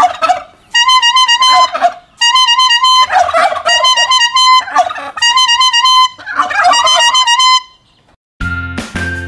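A squeezed plastic toy horn honking in short steady-pitched blasts, each answered by domestic turkeys gobbling back, the calls overlapping the honks. About 8.5 seconds in, a music jingle with a heavy bass beat takes over.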